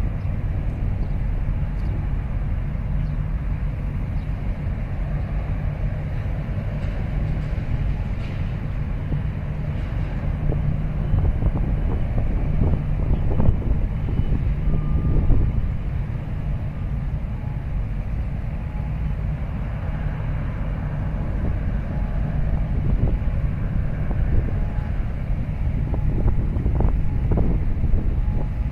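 Low, steady rumble of ship engines as a large container ship gets under way. It swells a little midway, with a few faint knocks.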